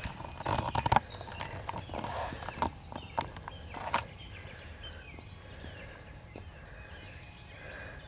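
A cat chewing a pine cone: a run of irregular crunching and crackling clicks, densest and loudest in the first four seconds, then only a few fainter crunches.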